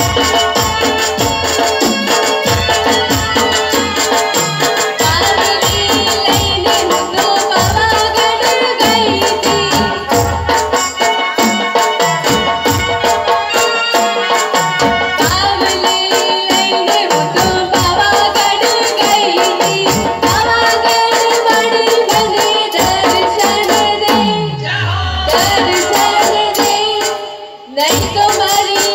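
Live garba folk music: a keyboard melody over fast, steady percussion with rattling strokes. Near the end a low falling glide and a brief dip in level, then a rising sweep as the music picks up again.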